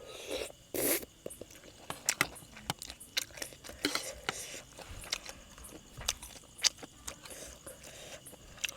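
A person chewing and biting chicken feet from a spicy salad close to the microphone, with many sharp crunches and wet chewing. Crickets chirr faintly and steadily underneath.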